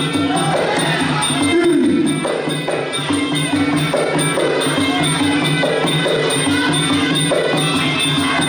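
Traditional Kun Khmer fight music: a wavering sralai reed-pipe melody over drums and small hand cymbals, keeping a steady beat.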